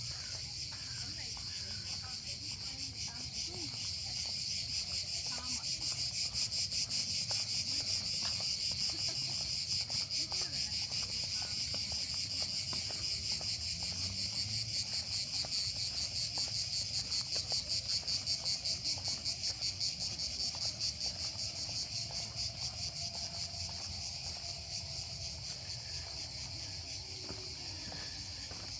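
Chorus of cicadas buzzing in a high, fast-pulsing drone, swelling louder a few seconds in and easing off toward the end.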